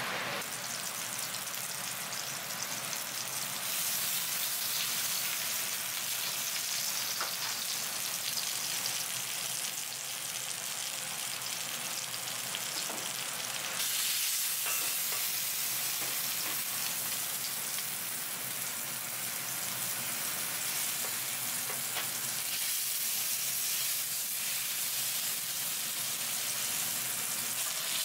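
Oil sizzling in a flat steel pan over a gas burner as a block of tuna sears: a steady frying hiss with a few faint crackles.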